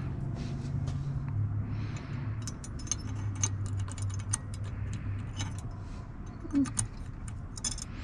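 Small sharp clicks and clinks of an LED headlight bulb being handled and fitted into a car headlight housing, coming thickly over the second half, over a steady low hum.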